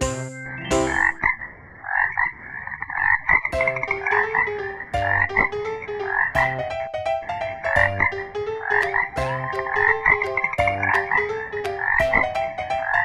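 Frogs croaking over and over in rapid pulsing calls.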